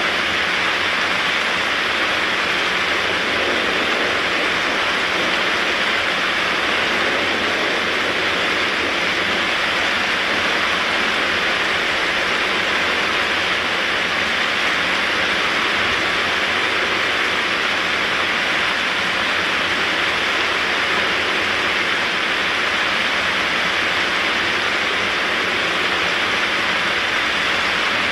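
Heavy rain pouring down steadily: an even, unbroken hiss that does not let up.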